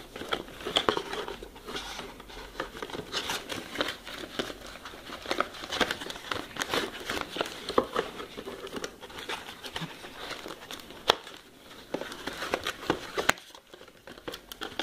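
Cardboard box packaging being handled and pried apart by hand: irregular rustling and crinkling with many sharp clicks and scrapes, dropping off briefly near the end.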